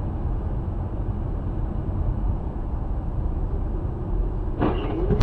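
A vehicle driving, its engine and tyres making a steady rumble heavy in the low end. Near the end comes a brief rising-and-falling vocal cry.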